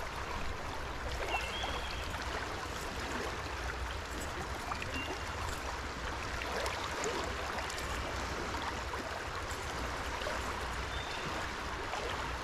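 Shallow trout stream running over a rocky riffle: a steady rush of water.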